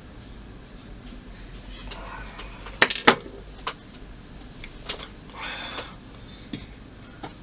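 Small hard model parts clicking and knocking together as they are handled and fitted, with two sharp clicks close together about three seconds in, a lighter click after, and a soft rubbing sound later.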